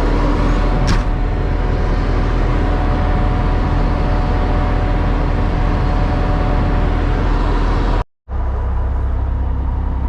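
Concrete mixer truck's engine running steadily with the drum turning, mixing in water just added to the load. There is a sharp click about a second in, and the sound cuts out completely for a moment near the end.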